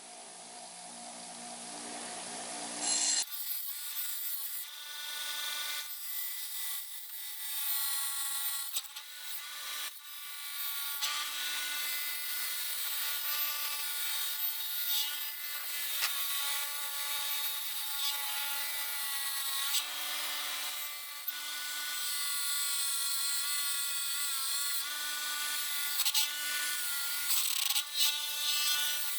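A power tool running steadily with a whining hum, its pitch wavering slightly as it works under load.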